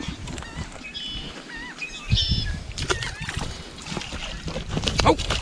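Geese honking several times. About five seconds in there is a splash and rustle of water as a blue crab is hauled up on a line out of a ditch.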